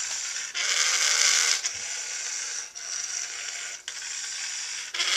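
Small DC gearhead motors of a two-wheeled robot running as it drives itself, in stretches of about a second with a short break between each as it switches between forward, backward and spinning.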